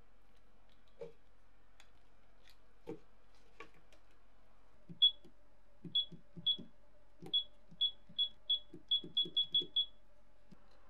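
A hobby LiPo battery charger's buzzer gives about a dozen short, high single-pitch beeps, each with a soft click, as its menu is stepped through. The beeps come faster toward the end. A few faint clicks come before them.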